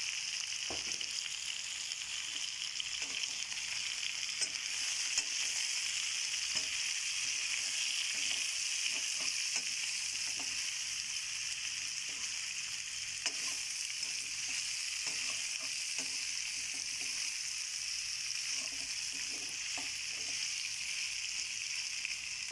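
Chicken gizzards and chicken pieces frying in a pan with a steady sizzle. A wooden spatula stirs them, scraping and knocking against the pan now and then.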